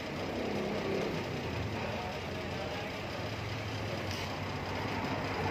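Steady background noise with a low hum, and faint indistinct voices in the distance early on.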